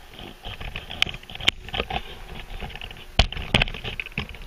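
Camera and tripod handling noise: scattered sharp clicks and knocks with some rustling as the tripod is adjusted and the camera is repositioned, the sharpest knock about three seconds in.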